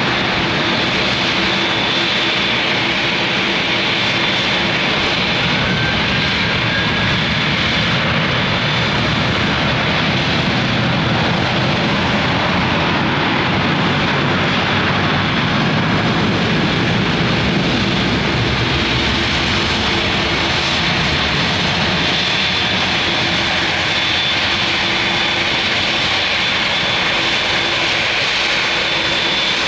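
Airliner engines running steadily and loudly at close range: a constant rush of noise with a high whine over a lower hum.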